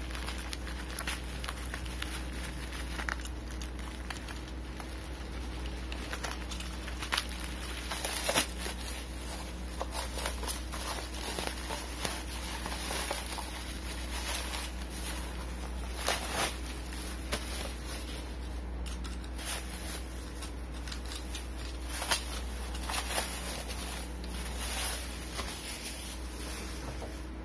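Bubble wrap and masking tape crinkling and crackling as they are cut with a box cutter and pulled away by hand, in irregular sharp crackles.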